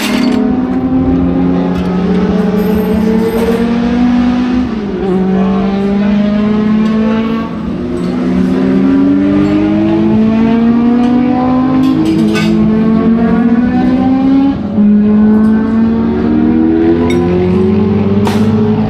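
Racing car engine under hard acceleration, its pitch climbing steadily and then dropping back at each gear change, again and again.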